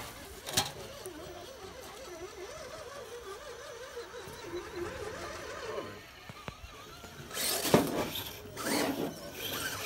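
Small electric motor and gearbox of an RC rock crawler whining, the pitch rising and falling as the throttle is worked. There is a sharp click about half a second in and two loud rough noises near the end.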